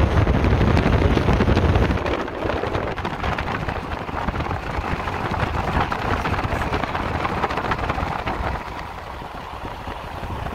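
Road and wind noise from a moving vehicle on a highway, with heavy low wind buffeting for the first two seconds that then settles into a steadier, lighter rush.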